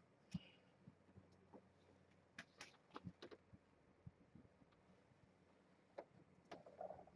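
Faint, irregular taps and clicks of kittens playing, with a small knock just after the start and a quick cluster of taps in the middle.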